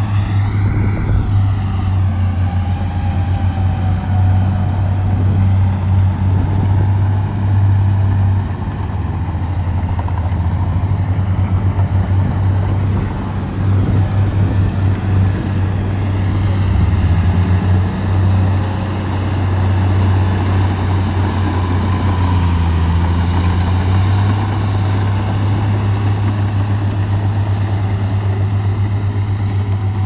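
Heavy diesel engine of earthmoving machinery running steadily, with a deep drone that pulses in loudness.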